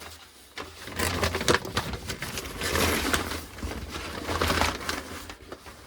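A package being opened by hand: irregular rustling, scraping and clicking of packaging material, starting about a second in.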